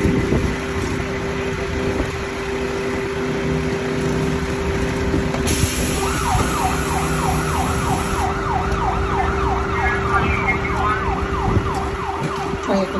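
Emergency-vehicle siren in a fast yelp, wavering about three times a second, starting about six seconds in over a steady idling engine drone.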